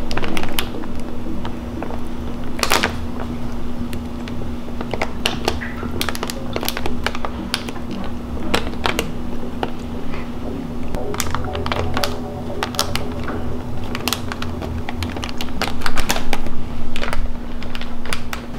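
Plastic bag of biscoito de polvilho (crunchy cassava-starch rings) being peeled open slowly at its seal, the film crinkling in sharp, irregular crackles and clicks, a little louder near the end.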